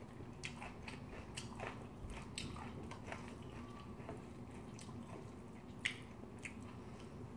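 A person chewing a mouthful of soft curry rice, close-miked: quiet wet chewing and smacking with scattered faint clicks, one sharper click near the end.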